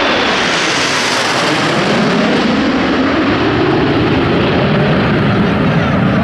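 A formation of Aermacchi MB-339 PAN jet trainers, each with a Rolls-Royce Viper turbojet, flying low past overhead. The engine noise is loud and steady; its high hiss sinks and fades over the first second or two as the jets pass and move away, leaving a deep rumble.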